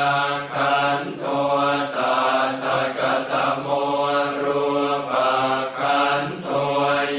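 Thai Buddhist funeral chant: low male voices chanting on a near-monotone pitch in a steady, even rhythm of syllables.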